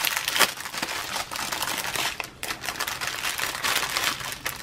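Thin clear plastic bags crinkling and rustling as hands handle and pull apart a diamond-painting kit's packaging, a continuous run of small crackles.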